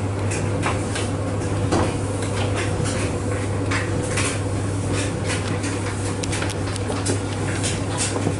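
Speed Queen front-loading tumble dryer running with a load of towels on high heat: a steady low hum with many irregular light clicks and clinks.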